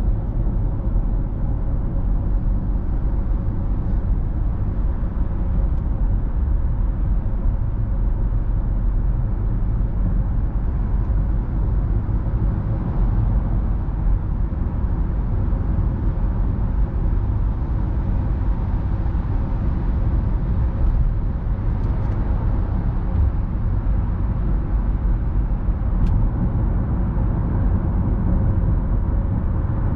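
A car cruising at highway speed, heard from inside the cabin: a steady low rumble of tyres and engine that holds at one level throughout.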